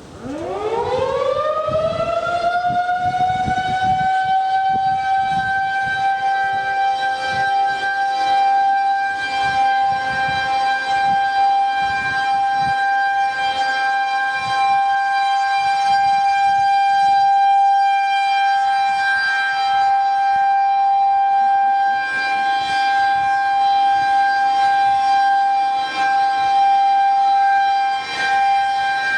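Federal Signal 2001-SRN rotating tornado siren winding up for a test: its pitch climbs steeply over the first couple of seconds, then holds a steady, very high-pitched tone.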